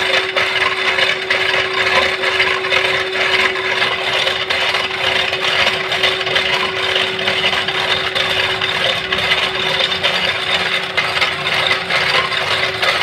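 Power hacksaw machine running and sawing: a constant motor hum under a loud, continuous scraping of the blade through the cut.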